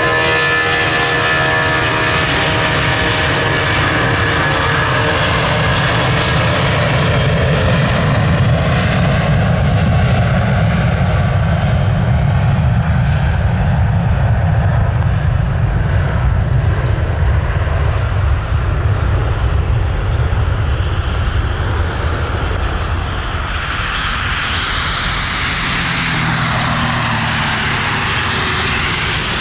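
Airbus A320's twin IAE V2500 turbofans at takeoff power through the takeoff roll, liftoff and climb-out. A whining fan buzz is strongest at first, then gives way to a deep rumble as the jet rolls away and lifts off, and a broad rushing roar builds again near the end.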